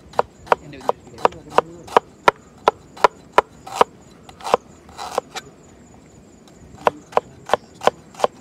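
Cleaver chopping ginger on a plastic cutting board: sharp knocks of the blade striking the board, about three a second. The chopping pauses for about a second and a half a little past the middle, then picks up again.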